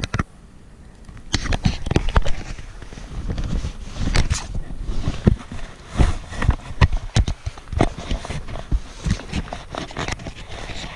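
Handling noise from a small camera being held and repositioned by hand: irregular knocks, clicks and rubbing of fingers on the camera.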